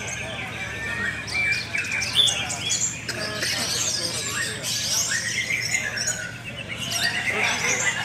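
Many caged orange-headed thrushes (anis merah) singing at once in a songbird contest: a dense, continuous tangle of overlapping whistles, chirps and quick sliding notes.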